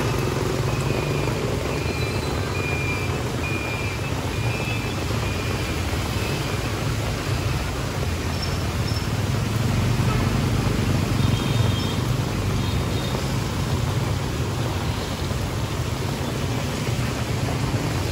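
Steady street traffic: a continuous wash of engine and road noise from passing vehicles, with a few faint short high chirps.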